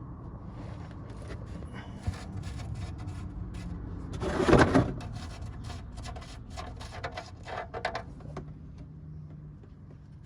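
Handling noises: a run of clicks and knocks over a low steady hum, with a louder scraping rush about four and a half seconds in.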